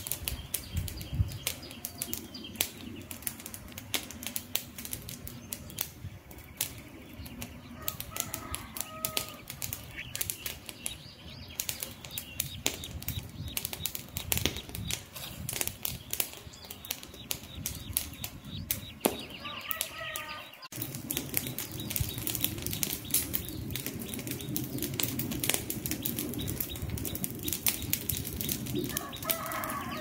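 Wood campfire crackling, with frequent irregular sharp pops and snaps over a low rush of burning flame.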